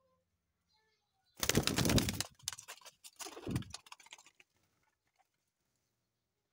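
A pigeon's wings flapping close to the microphone in two loud rustling bursts, the second about a second after the first.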